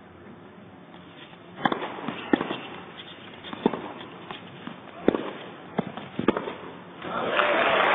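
Tennis rally on an indoor hard court: sharp racket-on-ball hits and bounces, about half a dozen spread over five seconds. Then the crowd applauds, swelling about seven seconds in as the point ends.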